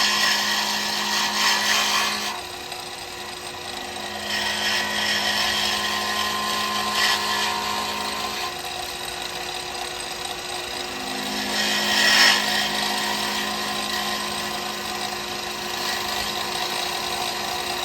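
Wood lathe running at high speed with a cast pen blank spinning, its motor humming steadily. Three passes of dry abrasive against the blank give rising and falling hissing, the loudest about two thirds of the way through.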